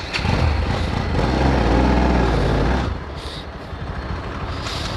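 Bajaj Pulsar NS200's single-cylinder engine revving hard as the motorcycle pulls away, its pitch rising and then falling, before easing off about three seconds in to a lower steady engine and road noise.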